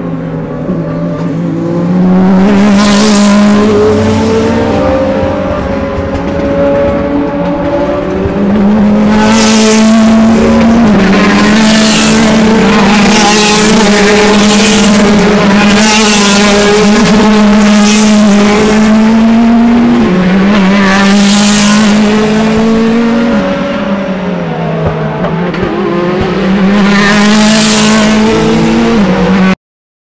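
DTM touring cars with 4.0-litre V8 engines racing past one after another at full throttle. A steady engine note with stepping pitch runs throughout, and about nine loud close pass-bys rise over it. The sound cuts out suddenly just before the end.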